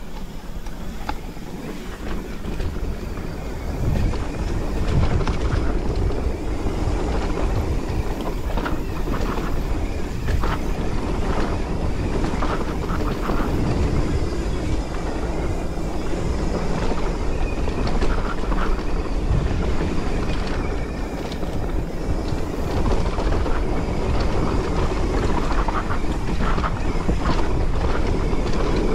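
Mountain bike rolling fast down a dirt singletrack: wind rumbling on the microphone and tyres running over the dirt, with short rattles and knocks from the bike over bumps. It grows louder about four seconds in as the bike picks up speed.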